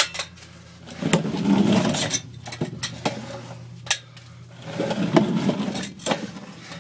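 Scraping and rubbing of a body and clothing dragged along a tight crawl tunnel, in two long stretches with scattered knocks, over a steady low hum.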